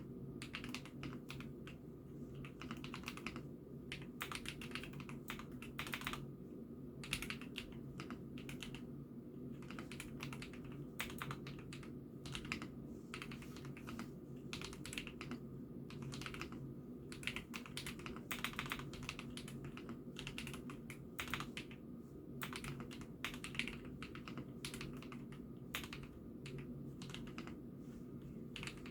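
Steady, continuous typing on an IKKI68 Aurora mechanical keyboard: quick, irregular key clacks, picked up by a phone microphone over a low steady hum.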